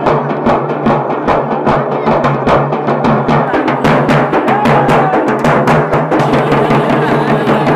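Group of two-headed drums beaten with sticks in a fast, even rhythm, about five strokes a second, over a steady low hum.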